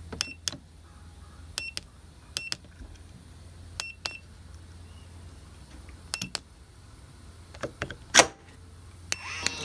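Keypad of an Array by Hampton Cooper smart lock being pressed, a code entered as a series of sharp clicks, most with a short high beep, spaced a second or so apart. A loud click comes near the end, then the lock's motor starts to whir, drawing the deadbolt back.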